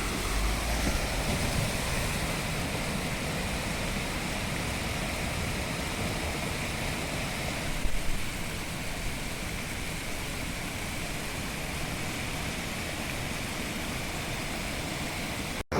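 Steady running noise of a vehicle driving on a rough, unpaved dirt road, with a brief louder jolt about eight seconds in. The sound cuts off abruptly just before the end.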